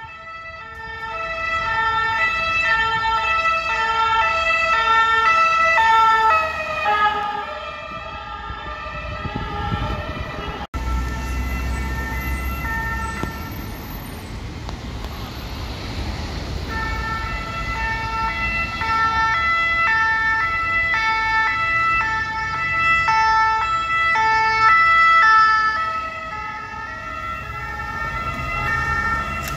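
French two-tone emergency-vehicle sirens, alternating between two notes, passing through city traffic. The first siren breaks off abruptly about eleven seconds in, leaving traffic noise, and another two-tone siren comes in a few seconds later and is loudest around twenty-five seconds in.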